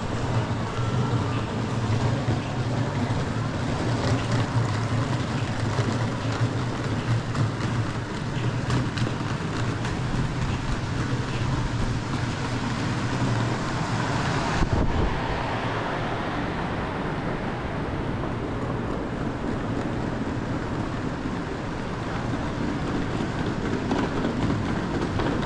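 Busy railway-station concourse ambience: a steady low hum under indistinct background crowd noise. The hum fades out a little over halfway through.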